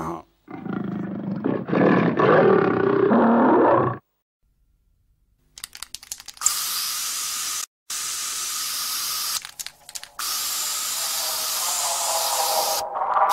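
A harsh, roar-like cartoon sound effect for the first few seconds. Then, after a short silence, a spray-paint can hissing in three long strokes.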